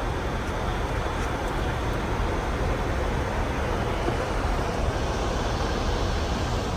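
Steady rush of airflow and hum inside a Boeing 747-400 flight deck during the approach descent, an even noise with no distinct events.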